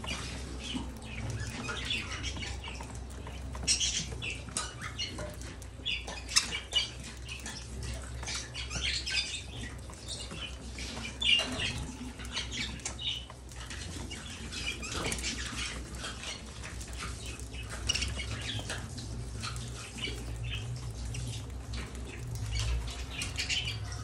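A flock of budgerigars feeding, a continuous busy chatter of short chirps mixed with clicks of pecking at food, with a few louder sharp chirps scattered through.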